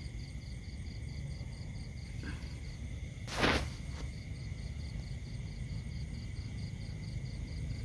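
Crickets chirping in a steady, even pulse of about three chirps a second, over a low wind rumble. A short, loud rustle comes about three and a half seconds in.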